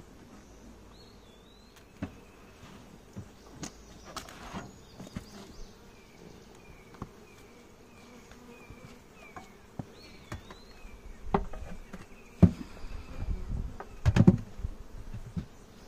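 Honey bees buzzing around an open hive, a faint steady hum. A bird calls over it with a run of short falling chirps, about two a second, and a few knocks and thumps, the loudest near the end.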